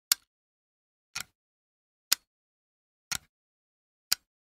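Antique gold clock ticking steadily about once a second, alternating a sharp single tick with a softer, doubled tock, with silence between the beats.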